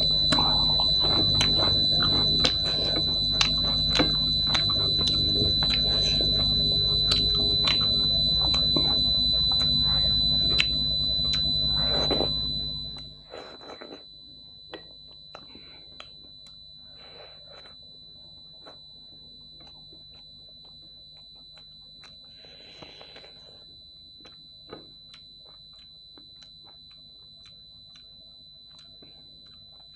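Close-miked eating by hand: short wet clicks and smacks of dhido and chicken curry being picked up and chewed, over a steady high-pitched whine. For the first 13 seconds a loud low hum runs with the whine, then it dies away, leaving the whine fainter and the eating clicks clearer.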